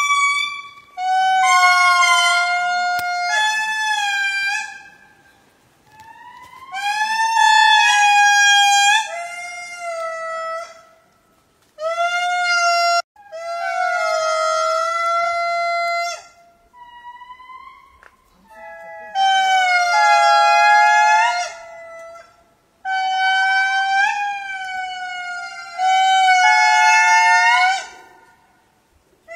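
Lemur calls: a run of about eight long, wavering, wailing calls, each one to three seconds long, with short pauses between them.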